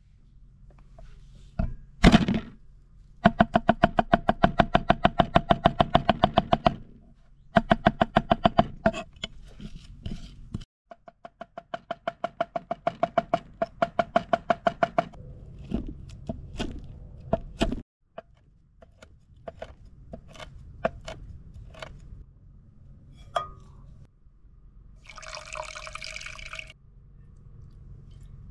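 Cooking sounds: a utensil beaten fast against ringing metal cookware in several quick runs of about ten strokes a second, then slower single knocks. Near the end, a short spell of pouring liquid.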